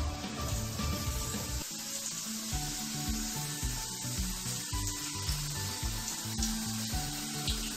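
Raw potato slices sizzling as they fry in hot oil in an aluminium kadai, a steady hissing crackle, heard under background music with a regular beat.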